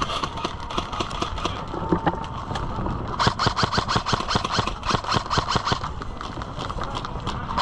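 Airsoft electric guns firing, with scattered shots and then a long rapid full-auto burst of clicking cracks from about three to six seconds in.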